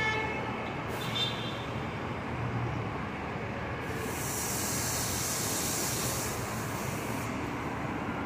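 New York City subway train at an elevated station, with a steady low rumble and a brief faint high whine in the first second or so. About four seconds in, a hiss of air starts and lasts some three seconds before cutting off.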